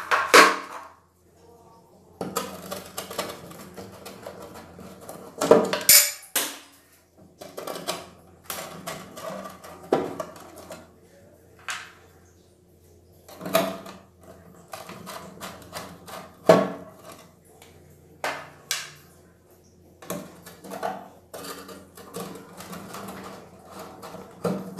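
Irregular clicks, knocks and scraping of hands and a small tool handling the plastic housing and blower wheel of a ceiling exhaust fan, with several louder knocks scattered through.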